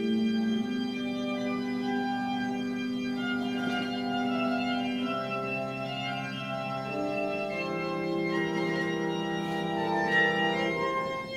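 Pipe organ playing a Baroque piece: held notes in several voices that change in steps, forming slow-moving chords.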